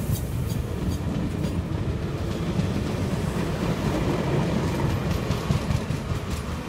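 Circumvesuviana narrow-gauge electric train passing close by, its wheels rumbling steadily on the rails. Wheels click over rail joints at the start and again near the end.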